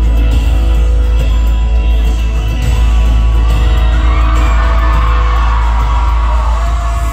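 Loud music through a concert sound system with a heavy bass, and an audience screaming and whooping over it from about halfway through. The music cuts off suddenly at the very end.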